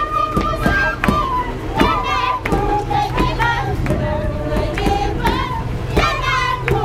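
Women singing a high-pitched Andean carnival song together, with a hand drum struck in a loose beat.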